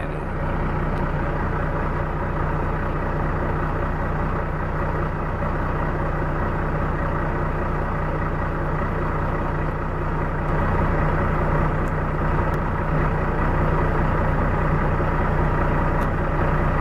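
Heavy diesel truck engine idling steadily, a Kenworth T880's Cummins 450 hp, getting slightly louder about ten seconds in.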